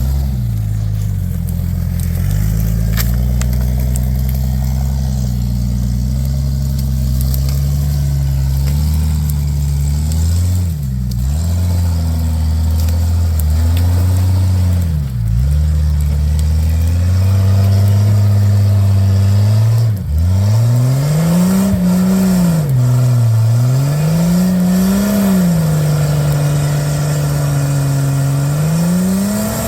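Off-road vehicle engine working under load: its pitch holds steady, sags and recovers twice, then rises and falls several times in the last third as the throttle is worked.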